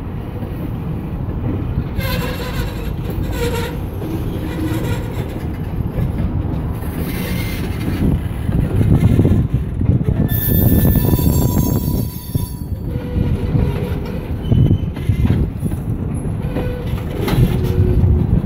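Freight tank cars rolling slowly past on yard track during switching: a steady low rumble with clicking and clanking of wheels over the rails, and high wheel squeal, loudest from about ten to twelve seconds in.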